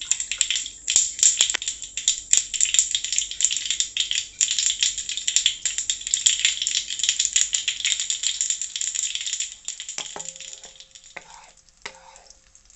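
Mustard seeds spluttering in hot coconut oil: a dense, loud crackle of pops, the sign that the oil is hot enough for tempering. The popping dies down about ten seconds in, and a wooden spatula then scrapes and stirs the seeds in the nonstick pan.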